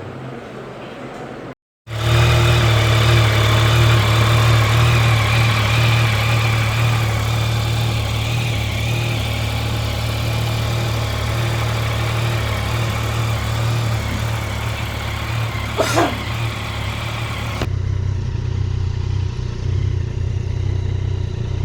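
Motorcycle engine running steadily at cruising speed, with heavy wind rush on the microphone. It starts abruptly about two seconds in, after a brief dropout. There is a short sharp squeak near the end, then the sound turns duller and quieter.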